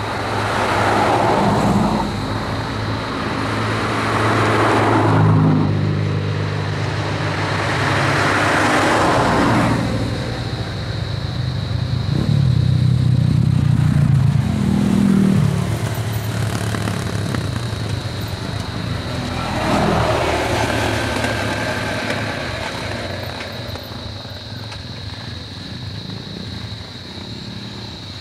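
Motorcycle and car engines running at low speed, with several vehicles passing one after another, each swelling and fading.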